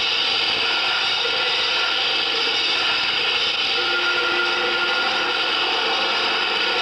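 Industrial noise soundtrack: a dense, steady wall of noise with faint held tones that come and go.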